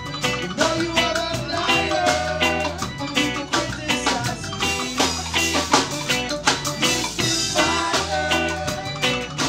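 A live band playing a song on drum kit, bass and guitar, with a steady drum beat and a bass line that changes note about once a second.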